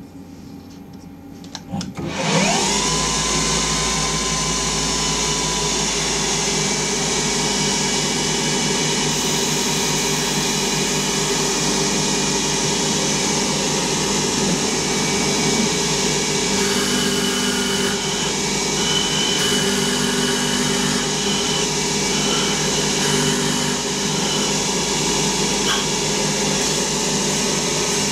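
Small CNC lathe spindle (a converted Hercus PC200) starting about two seconds in with a short rising whine, then running steadily and loudly with a timber blank held in a 5C collet. It winds down right at the end.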